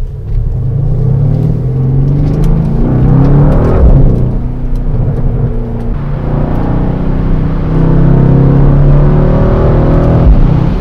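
Mercedes-AMG C63 S's 4.0-litre V8 pulling hard in Sport Plus, heard from inside the cabin. The engine note surges just after the start, eases off in the middle, then climbs again. Two brief low thumps come about four and ten seconds in.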